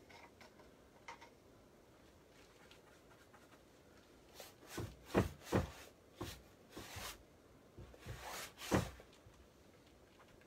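A cluster of short knocks and rubbing sounds against a painting canvas, the loudest about five and nine seconds in, as a painter works the surface by hand.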